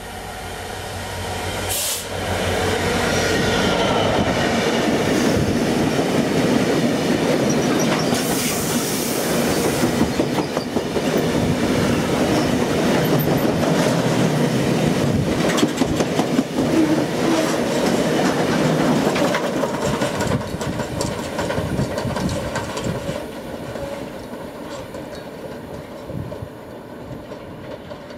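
A Class 66 diesel locomotive, with its two-stroke V12 engine, passes and hauls a long rake of PCA tank wagons by. The wheels make a rhythmic clickety-clack over the rail joints, with some squealing. The sound builds over the first few seconds, stays loud while the wagons roll past, then fades as the train draws away.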